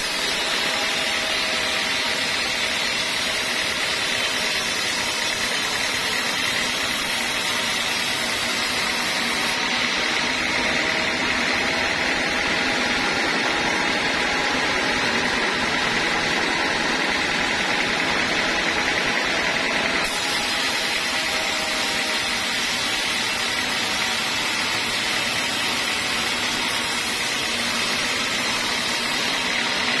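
Large vertical band sawmill running steadily, its blade ripping lengthwise through a teak cant as the carriage feeds it through.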